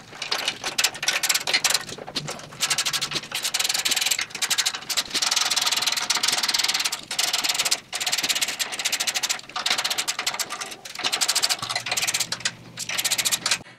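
Socket ratchet clicking in long runs of rapid clicks, broken by a few brief pauses, as bolts are backed out of the axle plates that hold a motorcycle frame to a steel jig.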